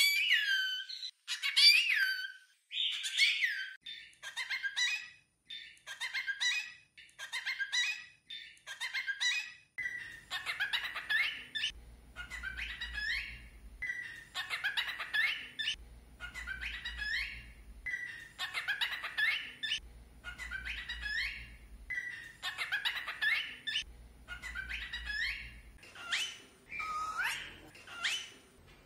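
Cockatiel chirping and whistling in a run of short, quick-gliding phrases about a second apart.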